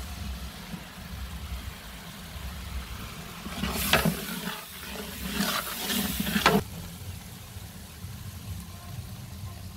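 Spice masala frying in a large aluminium pot, with a loud burst of sizzling about three and a half seconds in that lasts about three seconds as salt, red chilli powder and turmeric powder hit the hot oil. A steady low rumble runs underneath.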